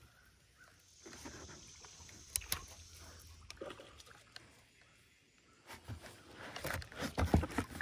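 Handling noise from a spinning rod and reel in a plastic pedal boat: scattered clicks and knocks, a faint hiss about a second in, and a cluster of louder knocks and thumps near the end.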